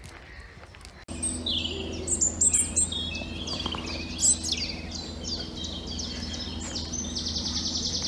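Several woodland birds singing: a run of varied chirps and whistles, with a fast, even trill near the end, over a steady low background hum.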